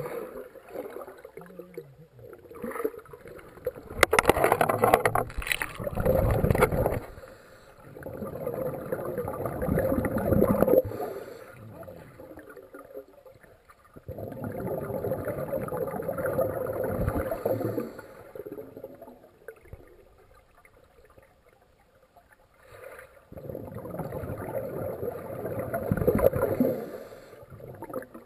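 Muffled swirling and bubbling of pool water picked up by an underwater camera as swimmers plunge in and kick, coming in about four surges a few seconds long with quieter stretches between.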